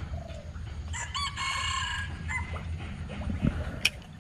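A rooster crows once, a single cock-a-doodle-doo lasting about a second and a half, over a steady low hum. Near the end comes one sharp click from the spinning reel being handled.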